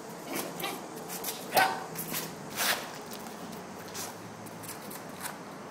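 Shoes scuffing and shuffling on stone paving during kung fu footwork, with short sharp swishes and scrapes every second or so, the loudest about a second and a half in.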